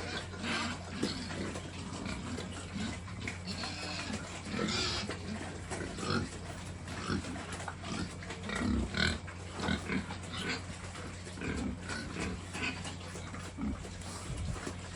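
Pigs grunting, a string of short, irregular grunts and squeals.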